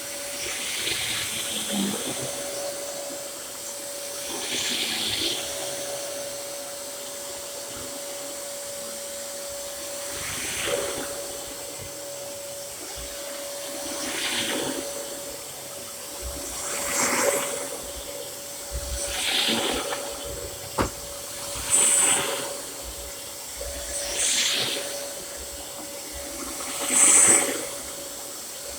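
Dyson DC07 root-cyclone upright vacuum cleaner running with a steady whine, its rushing airflow swelling louder every two to three seconds.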